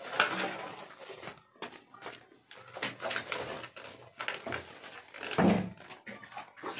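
Hands rummaging among live crabs in a metal basin: irregular clicks and scrapes of crab shells against the metal. A louder short sound comes about five and a half seconds in.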